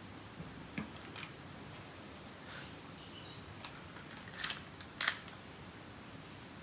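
Short metallic clicks from a full-metal C.1911A+ spring airsoft pistol being handled and cocked, ending in a pair of sharper snaps about four and a half and five seconds in, the second the loudest.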